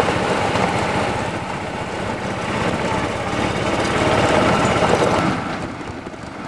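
Golf buggy's small engine running as the buggy drives, a steady drone with a fast pulse; it eases off and gets quieter about five and a half seconds in.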